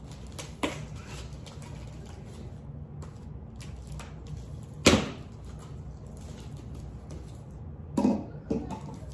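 Handling of a cardboard shipping box sealed with tape: a few short knocks and cardboard scrapes as it is cut and its flaps are pulled open, the loudest about five seconds in and two more near the end, over a steady low hum.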